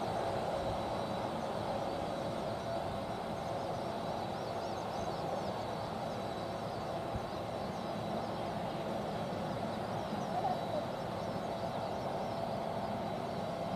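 Jet airliner's twin turbofan engines running at taxi idle: a steady rushing whine with a held mid-pitched tone and a thin high whistle.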